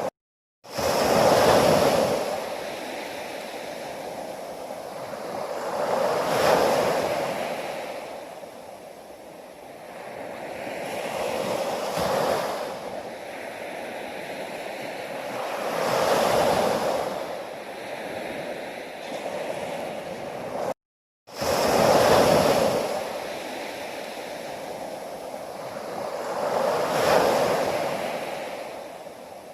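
Sea waves breaking in surf, each wave swelling and washing back about every five seconds. The sound cuts out completely for about half a second twice, near the start and about two-thirds of the way through.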